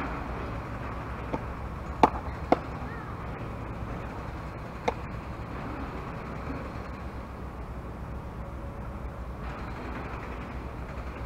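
Sharp leather smacks from a softball catcher's mitt, the loudest two about half a second apart around two seconds in and a fainter one near five seconds, over a steady low rumble.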